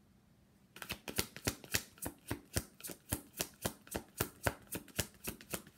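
Deck of divination cards being shuffled by hand: a quick, even run of card slaps and flicks, about three to four a second, starting about a second in.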